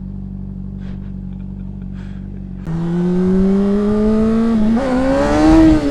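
Honda CBR sport bike's inline-four engine idling steadily, then pulling away: a little under three seconds in the revs jump and the engine note climbs steadily, with a brief hitch near the five-second mark, as wind rush builds on the helmet microphone.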